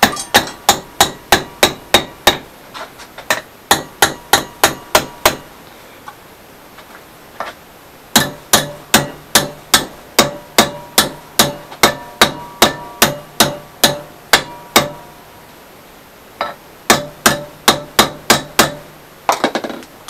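Hammer blows on a steel rod clamped in a bench vise, bending it into a sump pump handle: runs of sharp metallic strikes, about three a second, broken by short pauses, with a faint ringing of the metal under the longest run in the middle.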